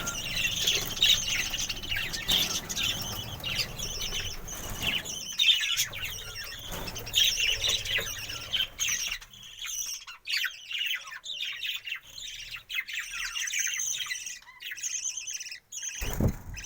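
A flock of budgerigars chattering and chirping continuously, with some wing flapping.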